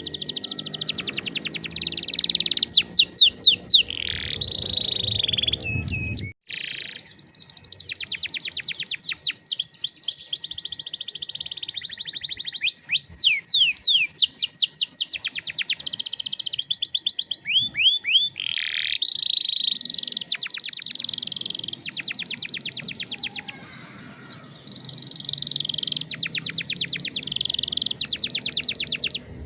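Domestic canary singing a long song of fast trills and rolls: rapid runs of repeated high notes, with quick glides between them and short breaks. The song cuts off abruptly about six seconds in and picks straight up again.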